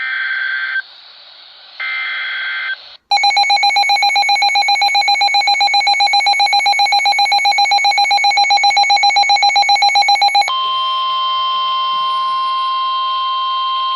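Emergency Alert System tones on a weather radio. Two short screechy digital SAME header bursts come first. About three seconds in, a rapidly pulsing electronic alarm beep starts and runs for about seven seconds, then switches to a steady single-pitch warning alarm tone: the sign of an incoming flash flood warning.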